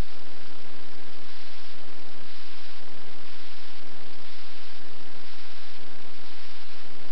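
Steady hiss with an electrical mains hum underneath, level throughout, with no mewing or other distinct sound.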